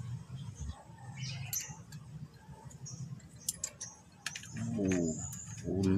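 Light metallic clicks from a clutch slave cylinder's hydraulic fitting being handled, over a steady low hum. Two short pitched calls near the end, the second the loudest.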